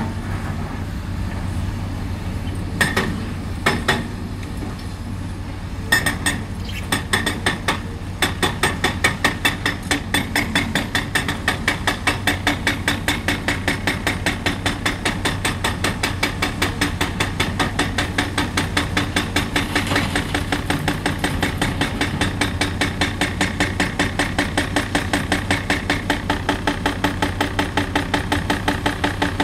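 Excavator-mounted Atlas Copco hydraulic hammer pounding the concrete of an old bridge, over the steady running of the excavator's diesel engine. A few separate blows come in the first seconds, then from about six seconds in the hammer runs continuously at several blows a second.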